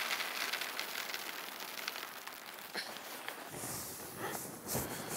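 Styrofoam packing peanuts pouring out of an upended cardboard box, a dense pattering rustle of many light pieces. After about three and a half seconds this gives way to rougher rubbing of styrofoam and cardboard as hands dig into the box.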